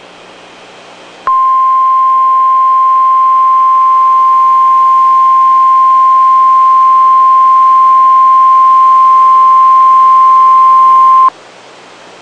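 NOAA Weather Radio warning alarm tone: a single steady 1050 Hz beep held for about ten seconds, starting about a second in and cutting off sharply, over faint radio hiss. The tone signals that a warning message, here a severe thunderstorm warning, follows.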